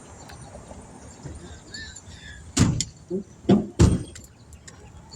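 Three heavy thumps a little over two seconds in, coming within about a second and a half, the last the loudest, over low background noise.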